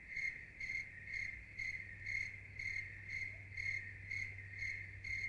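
Cricket chirping in a steady rhythm, about two short high-pitched chirps a second, over a faint low hum.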